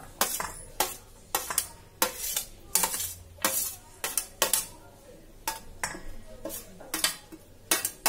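Steel spoon scraping and clinking against a stainless steel plate as chopped onion and coriander are pushed off it, about two or three sharp clinks a second.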